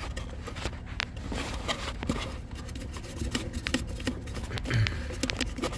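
Fingers picking debris out of a car's blower motor fan housing: irregular light clicks, scrapes and rustles of plastic, with a dull thump about five seconds in.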